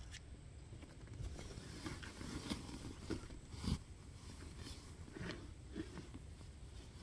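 Faint handling noises: scattered light taps and rustles, with one soft knock about three and a half seconds in.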